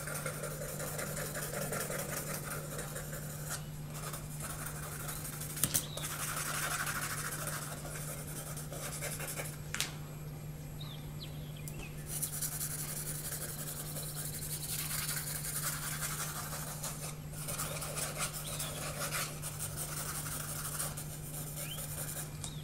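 Graphite pencil scratching on sketchpad paper in quick back-and-forth shading strokes, coming in stretches of a few seconds with short pauses, over a steady low hum. Two sharp clicks, about six and ten seconds in.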